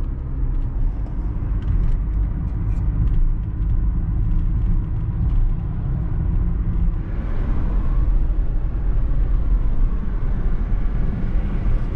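Diesel truck driving, heard from inside the cab: a steady low engine and road rumble. About seven seconds in, a higher hiss of tyre and wind noise grows louder.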